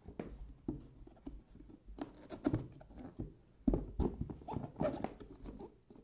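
Fingers scraping and tapping on a cardboard keyboard box as its end tuck flap is worked open: quick clusters of scratchy clicks and rubbing, busiest in two spells, about two seconds in and again in the second half.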